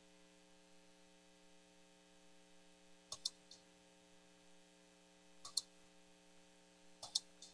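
Faint steady electrical hum from a call microphone. Three short double clicks, a couple of seconds apart, like a computer mouse button being pressed and released.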